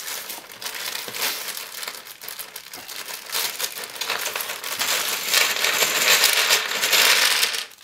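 Clear plastic bag crinkling as it is handled and pulled open, louder over the last two or three seconds as it is tipped and the small black plastic 18650 cell spacer holders inside spill and rattle out.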